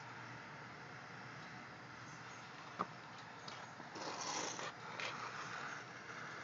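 Handheld butane torch: a single click, a scuffing rustle about four seconds in, then the torch flame hissing steadily from about five seconds in.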